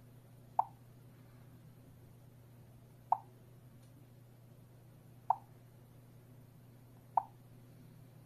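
Home alarm control panel's touchscreen giving four short key-press blips, one per tap, a couple of seconds apart, over a low steady hum.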